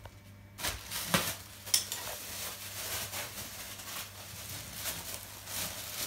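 A plastic bag crinkling and rustling as it is handled, with a couple of sharp knocks about one and two seconds in.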